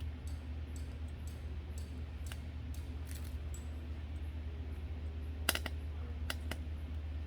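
Light clicks and taps, with a few sharper clicks about five and a half to six and a half seconds in, over a steady low hum.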